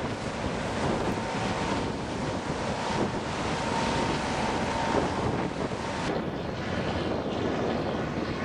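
Wind buffeting the microphone over the steady engine and wash of a harbour cruise boat passing close by. About six seconds in the sound turns suddenly duller.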